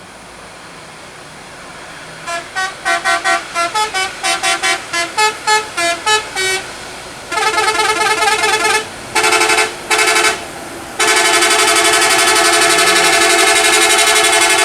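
Bus's multi-tone telolet horn playing a quick tune of short notes of changing pitch, then several longer blasts and a long held chord near the end.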